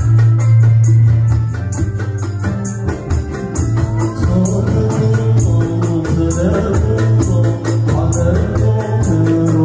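Music with a strong bass line and a steady percussion beat; a singing voice comes in about four seconds in.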